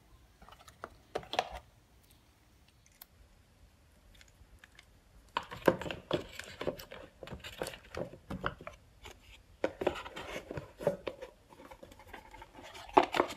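Cardboard product boxes being handled by hand: short scrapes, rustles and light knocks as a box lid is pushed shut and the box is picked up. Sparse for the first few seconds, then busy from about five seconds in.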